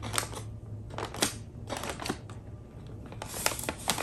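Paper lunch bags crinkling and rustling as hands press the glued folds together, in scattered short bursts that grow busier near the end.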